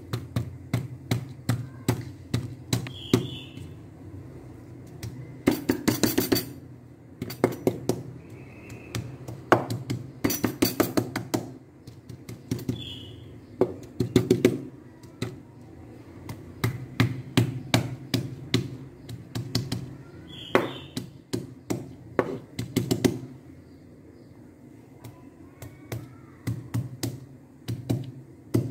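Kitchen knife chopping shallots and garlic coarsely on a wooden cutting board: quick runs of sharp chops, several a second, with short pauses between runs.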